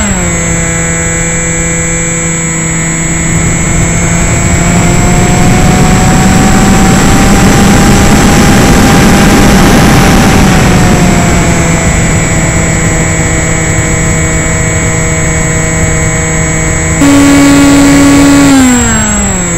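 The electric motor and propeller of an AXN RC plane, heard through its onboard camera, whining as the throttle comes back at the start and the pitch drops. Wind rush swells during a dive around the middle, with the whine rising a little. Near the end there is a short burst of higher-pitched throttle, which then falls away again.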